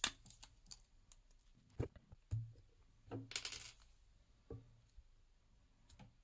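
Faint, scattered light clicks and taps from handling a BLU F91 5G smartphone while its SIM tray is pushed out with a small ejector pin, with a brief scraping rustle about three seconds in.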